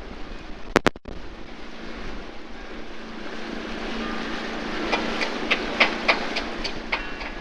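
Small canal boat's motor running steadily with a low hum, over the rush of water. Two sharp knocks come just under a second in, and a rapid run of clicks and knocks in the last few seconds.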